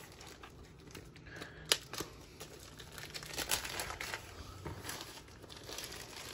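Packing tape being peeled and torn off a cardboard shipping box, with irregular crinkling and a few sharp snaps.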